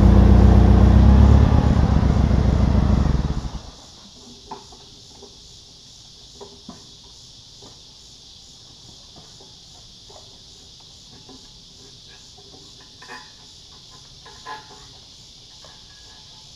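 A forklift's engine running loud and steady, then shut off abruptly about three and a half seconds in. After that, faint steady insect chirping and a few light knocks.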